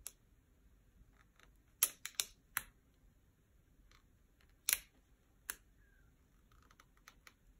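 Fingers and nails handling small pieces of printed card and paper, making a few short, sharp clicks and ticks: three close together about two seconds in and a louder single one near the middle.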